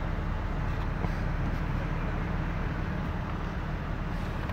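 Steady low rumble of vehicle engines and road noise heard from inside a car cabin.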